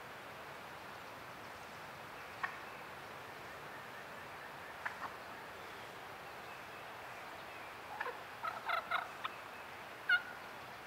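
Wild turkey calling: a few short single calls, then a quick run of several notes about eight seconds in, and one sharper, louder note near the end.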